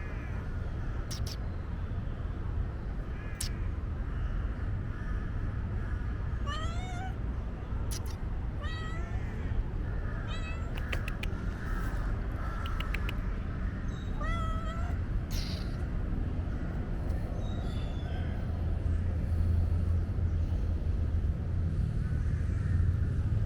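Stray cat meowing about five times, short calls that bend up and down in pitch, one every couple of seconds through the middle stretch, over a steady low rumble that grows louder near the end.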